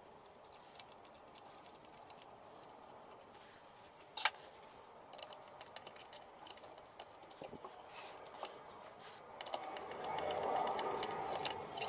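Small handling and screwdriving noises on a wooden part with a metal coil spring: a sharp click about four seconds in, then a run of small clicks. Near the end comes a louder scratchy grinding as a screw is turned into a wooden disc.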